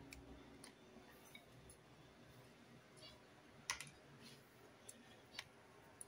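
Faint light clicks and taps as pieces of dried orange peel are dropped into a plastic blender bowl, with one sharper click about three and a half seconds in.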